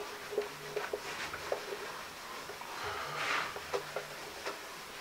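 A whiteboard being wiped clean: a rubbing swish about three seconds in, among scattered light clicks and knocks against the board.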